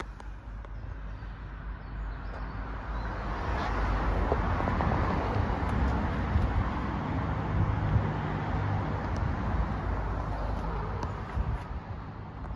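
Road traffic outside: a vehicle passing by, its rumble and tyre noise building over a few seconds, holding, then fading away.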